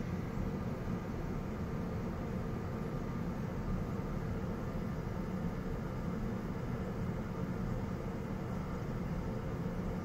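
Steady low rumbling noise with a fainter hiss over it, unchanging throughout, with no bird calls, pecking or other distinct sounds standing out.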